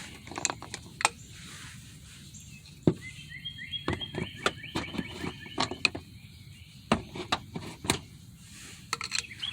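Scattered sharp clicks and taps of a screwdriver and hand tools working metal and plastic parts, about a dozen in all. A bird chirps a quick run of notes from about three to six seconds in.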